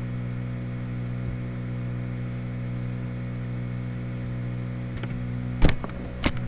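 Steady electrical hum with several even overtones and light hiss, picked up by the recording microphone. Two sharp clicks sound near the end, about half a second apart.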